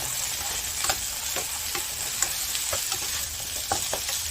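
Cut eggplant and potato sizzling as they fry in hot oil in a pan, with scattered sharp clicks of stirring against the pan.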